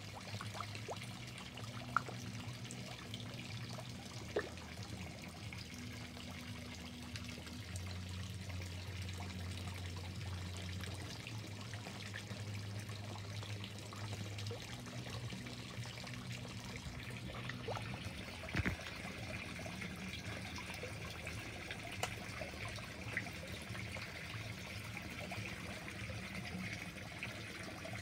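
Water trickling steadily into a koi pond, with a low hum that comes and goes and a few sharp clicks.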